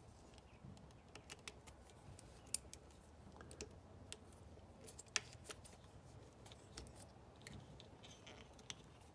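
Faint, scattered small clicks and handling rattles, with two sharper clicks about two and a half and five seconds in: test leads and clips being connected to the outboard's wiring terminals.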